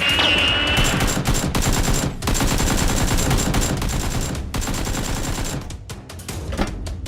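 Rapid machine-gun-style gunfire, dense bursts of shots that thin out near the end, over background music.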